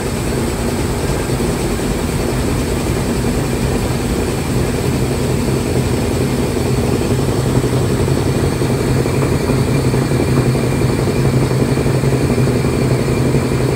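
Washing machine running during a wash, a steady low motor hum over an even noise, growing slightly louder toward the end.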